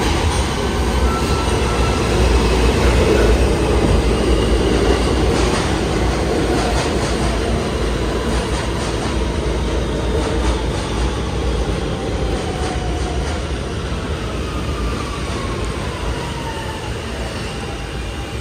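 A New York City subway train, a Queens-bound F, pulling into an underground station. The wheels on the rails make a loud rumble that is strongest a few seconds in, then eases as the train brakes, while a whine from the motors falls steadily in pitch as it slows.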